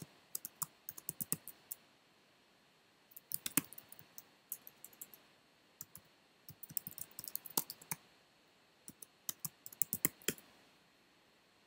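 Typing on a computer keyboard: several short bursts of key clicks with pauses between them, stopping about ten and a half seconds in.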